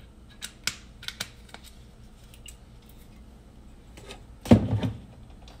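Kitchen handling noises at the stove: a few light, sharp clicks and taps, then a louder knock with a short clatter about four and a half seconds in.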